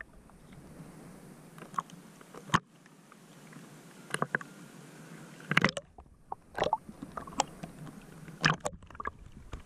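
Shallow sea water sloshing and slapping around an action camera held at the waterline, with irregular sharp splashes as small waves break over it.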